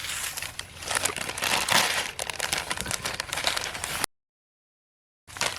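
Plastic food packet crinkling and crackling as it is handled and opened. The crackle cuts to dead silence for about a second near the end, then resumes.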